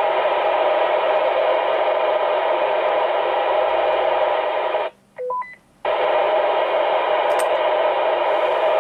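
Two-way radio receiver giving out loud static hiss in two long stretches of about five seconds each. About five seconds in, a short break carries a quick three-note roger beep that rises in pitch.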